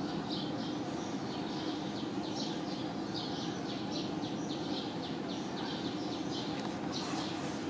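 Outdoor ambience: a steady low background noise with rapid high chirping, several chirps a second.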